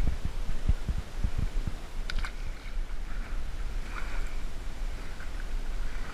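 Wind rumbling on a hat-mounted camera's microphone, with a quick run of low thumps in the first second and a half and a sharp click about two seconds in.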